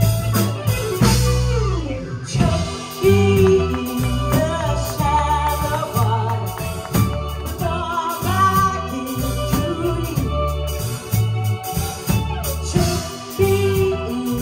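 Live bar band playing a pop-rock song: a woman singing lead over electric guitar, electric bass, keyboards and drums.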